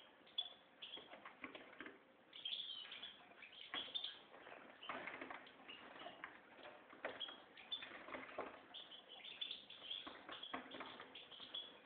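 A goldfinch × canary mule singing: a continuous, fast twittering song of short chirps and trills with quick pitch glides.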